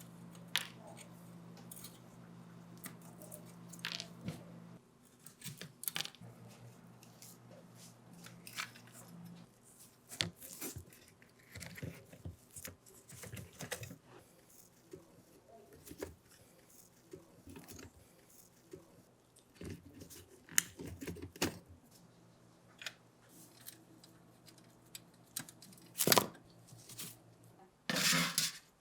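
Irregular clicks, clinks, scrapes and rustles of small hard objects being handled, over a low steady hum that stops about five seconds in and returns later. The loudest knocks and scrapes come near the end.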